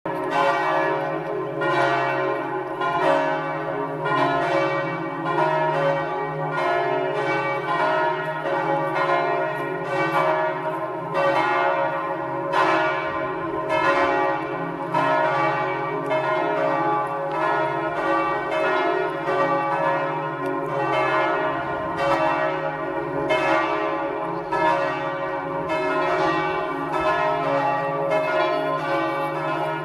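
Three church bells, tuned to D♭3, E♭3 and F3, swinging in full peal together. Their strokes overlap in an uneven rhythm of about one to two strikes a second, over a continuous ringing hum.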